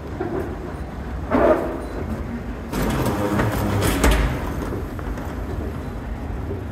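Moving escalator running with a steady low rumble in a station hall. There is a short voice-like sound about a second and a half in, and a louder stretch of mixed noise with a thump around three to four seconds in.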